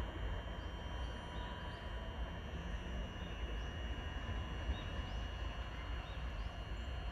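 Steady low outdoor background rumble, with a few faint short bird chirps.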